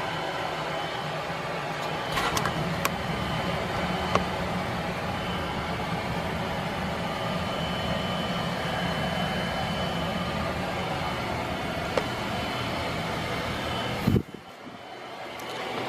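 Dayton Lasko 56-inch industrial ceiling fan running steadily, a low motor hum heard close up, with a few small handling clicks. Near the end a sharp knock, then the sound cuts off suddenly.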